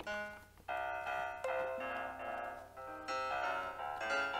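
Piano notes and chords from Mixcraft 9's acoustic piano instrument, triggered from the drum pads of a Worlde Panda Mini MIDI controller. A few notes at a time start roughly every second and ring on.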